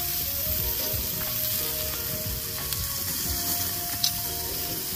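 Marinated cross-cut beef short ribs sizzling steadily on a hot grill grate, with two sharp clicks from the metal tongs, one at the start and one about four seconds in.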